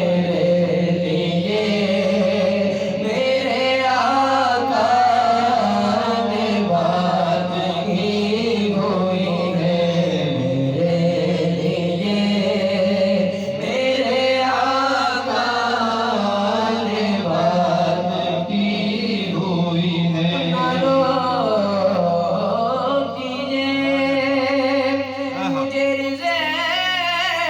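A man's voice chanting a devotional naat melody without a break, in long wavering held notes.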